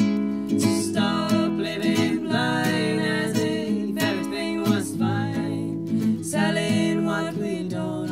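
Acoustic guitar playing chords in a folk song.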